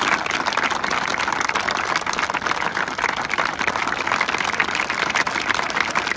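A large crowd clapping hands together in sustained, dense applause.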